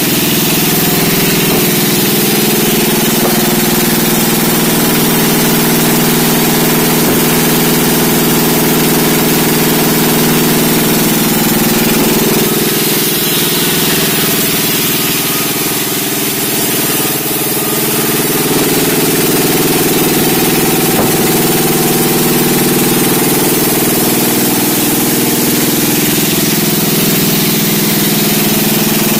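Sawmill's engine running steadily, easing off briefly a little past halfway before picking up again.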